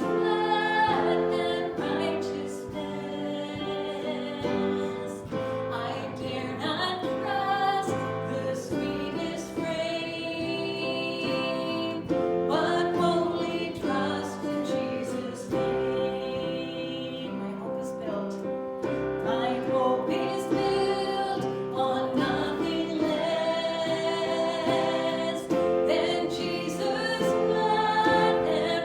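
A slow worship song: a woman's voice singing over sustained instrumental chords.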